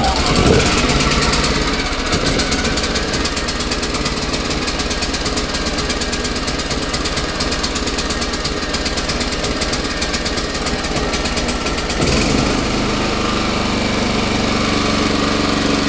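Champion 4000-watt open-frame inverter generator's engine running just after a pull start on choke, with a fast, even firing beat. About twelve seconds in the sound changes and settles to a smoother, steadier running note.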